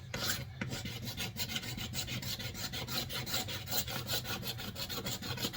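A Cold Steel knife blade scraping old duct tape adhesive off a wooden axe handle, in quick, even back-and-forth strokes, several a second.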